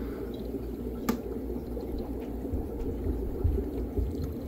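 Aquarium aeration bubbling steadily, air from airline tubing rising through the tank water, over a low hum. A single sharp click about a second in.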